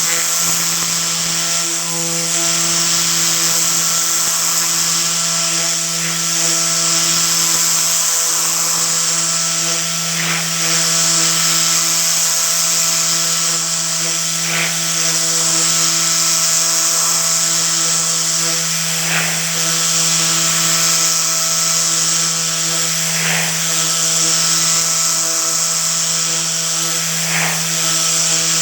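Tornador compressed-air cleaning gun running, a loud steady air hiss with a whirring edge that swells and eases every couple of seconds, over a steady hum. Faint short swishes come about every four seconds.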